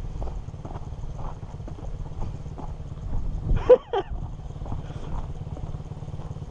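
Suzuki RM250 two-stroke dirt bike engine running at low throttle with an uneven burble as the bike rolls over loose, rocky dirt, with small irregular knocks from the gravel. A short, louder pitched sound comes just past halfway.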